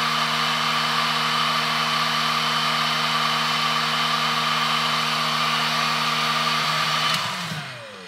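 DeWalt heat gun running steadily, its fan motor humming under a rush of blown air. About seven seconds in it is switched off and the motor winds down with a falling pitch.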